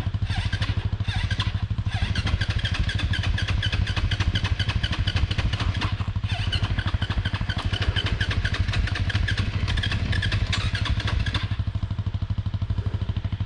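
Dirt bike engine idling with a steady rapid pulsing. A higher rattle running over it drops away about eleven seconds in, leaving only the idle.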